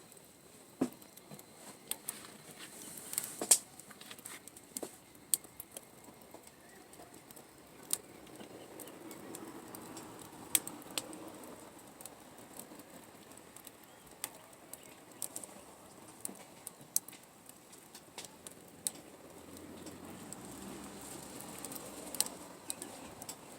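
Wood campfire crackling: irregular sharp pops and snaps over a soft background rush.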